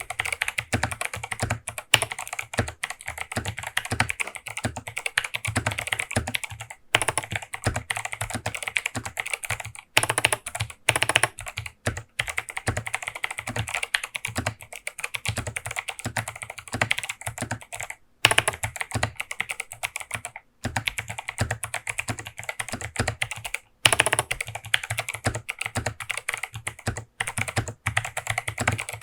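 Fast typing on an 8BitDo Retro Mechanical Keyboard C64 Edition, its Kailh Box White V2 clicky switches clicking in a rapid run, broken by several short pauses.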